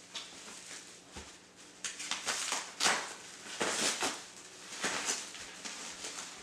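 Bubble wrap and plastic packaging rustling as parts are handled in a cardboard box, in irregular bursts that are loudest in the middle.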